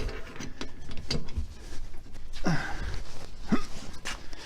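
Lug wrench clicking and clinking on a car wheel's lug nuts during final hand tightening, with two short grunting exhales from the person straining on the wrench about two and a half and three and a half seconds in.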